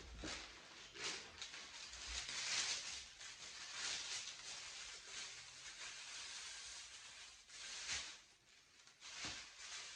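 Scratchy rustling handling noise, with a few soft knocks, as a leather boot and its packaging are turned over in the hands.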